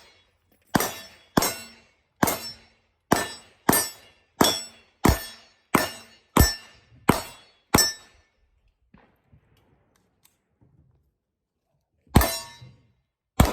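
Springfield XDM pistol fired in a steady string, eleven shots at about one every two-thirds of a second, each with a ringing metallic tail. Then a pause of about four seconds, the magazine change, before firing resumes with two more shots near the end.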